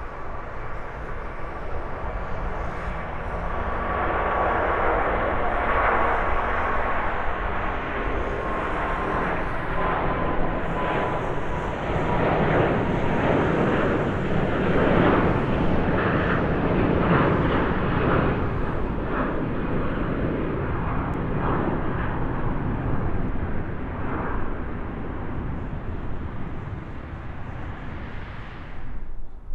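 Airbus A380-841 taking off, its four Rolls-Royce Trent 970 engines at takeoff thrust: a broad jet roar with a whining tone that slowly drops in pitch. The roar builds to its loudest, crackling, about halfway through as the jet passes, then slowly fades.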